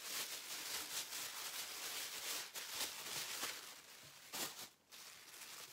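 Plastic bag and sheets of craft vinyl crinkling and rustling as they are unpacked and handled, with a short lull a little before the end.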